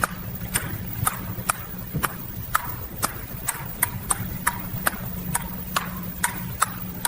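Sharp clicks, about two a second and slightly uneven, over a steady low hum.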